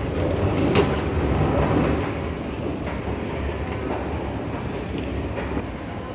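Escalator running, a steady mechanical rumble and rattle from its moving steps, with one sharp click about a second in.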